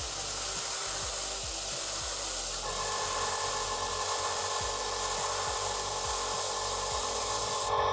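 Airbrush spraying a steady hiss of air and thinned paint, which cuts off abruptly just before the end as the trigger is released.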